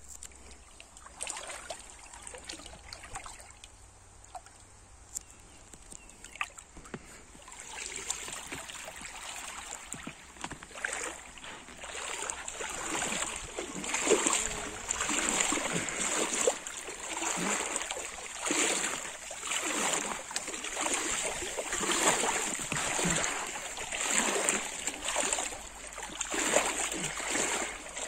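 Shallow stream water splashing and sloshing around an inflatable float. It comes in surges about once a second, quiet at first and louder after the first several seconds, over a steady high hiss.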